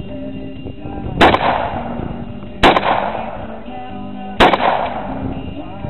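Three shots from an AR-15 rifle in .223, about a second and a half apart, each dying away over about a second, over background music.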